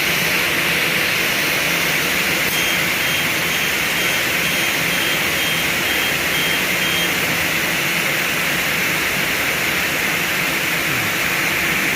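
CNC double-head aluminium cutting saw with large 550 mm circular blades running: a steady, loud, even whoosh of the spinning blades and motor.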